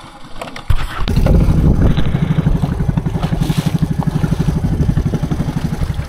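Long-tail boat engine picking up sharply about a second in, then running steadily at speed with a fast, even beat.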